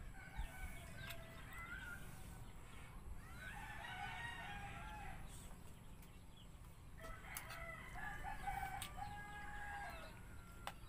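Rooster crowing, once about four seconds in and again about seven seconds in, each crow drawn out.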